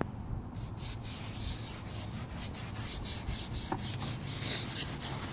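A cloth scrubbing back and forth on a car's interior door panel, a quick steady run of rubbing strokes, working crayon marks off with lemon oil.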